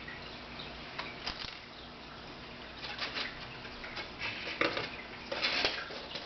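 Light, irregular clicks, taps and scrapes of small metal screws and a screwdriver against a laptop screen panel and its mounting brackets as the screws are worked in, with a few busier clusters of handling noise.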